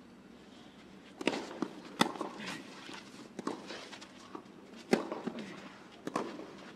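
Tennis rally on a clay court: sharp racket strikes on the ball about every one and a half seconds, the loudest about two and five seconds in, with quieter ball bounces and footsteps between them.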